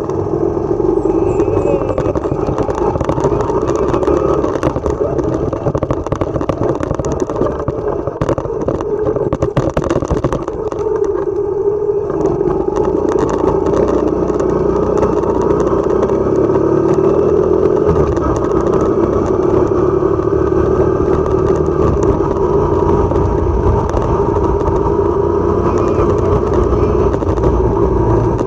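Motorcycle engine running steadily while being ridden, its note shifting a little as it speeds up and slows, with some rattling over a rough stretch about a third of the way in.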